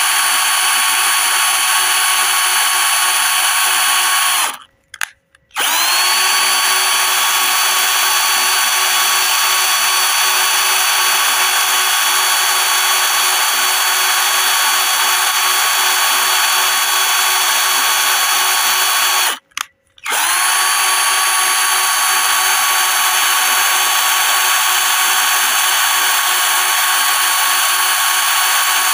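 Electric drill running steadily at full speed with a continuous high whine. It cuts out briefly about five seconds in and again about twenty seconds in, each time starting again with a short rising whine as it spins back up.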